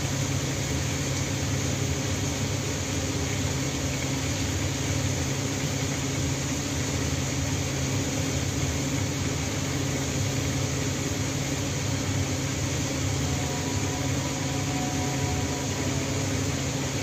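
A steady low hum with an even hiss over it, holding level without a break: running kitchen equipment near the stove.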